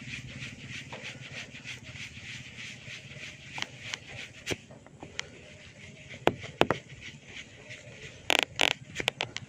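Hair cracking: tufts of hair snap with sharp little pops as they are gripped and tugged during a head massage. The pops come singly, then two loud ones close together past the middle, then a quick run of pops near the end, over a steady high background hiss.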